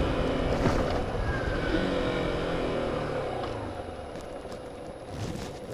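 Yamaha YBR motorcycle's single-cylinder four-stroke engine running on the road, with wind rumble on the microphone. Engine and wind die down over the last couple of seconds as the bike slows.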